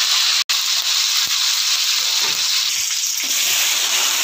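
Curry leaves frying in hot oil in an aluminium kadai: a loud, steady sizzle that drops out for an instant about half a second in and changes a little after three seconds.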